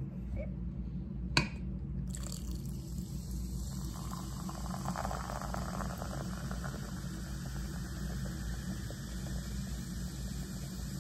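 Lime sparkling mineral water being poured into a glass of ice and fizzing, swelling for a few seconds in the middle. A sharp click sounds a little over a second in.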